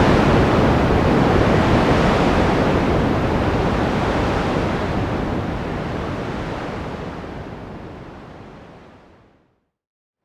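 Steady rushing noise of ocean surf. It fades gradually over the last few seconds to silence.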